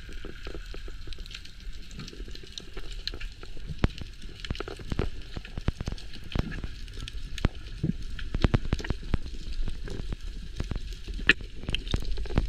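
Underwater crackling: a dense, irregular run of sharp clicks and pops over a low rumble, heard through a camera under water among reef rocks.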